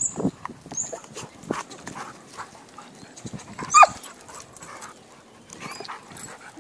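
Two dogs, a chocolate Labrador and a white dog, play-fighting: scuffling on wood chips, with one short, high yelp falling sharply in pitch about four seconds in.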